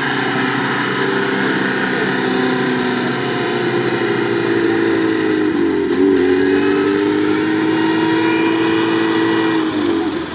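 VAZ-2101 Zhiguli engine held at high revs while the car struggles in deep sand. The pitch stays steady, dips and recovers about six seconds in, and drops off near the end.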